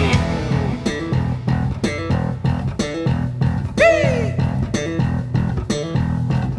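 Rock band instrumental passage: bass guitar and guitar play a sparse, rhythmic riff over regular drum hits. A falling pitch glide comes about four seconds in.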